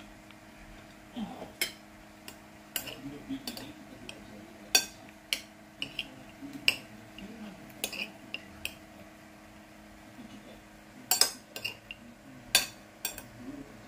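Metal spoon clinking and scraping against a ceramic plate while eating rice, in sharp irregular clinks with a quick run of them near the end. A faint steady hum sits underneath.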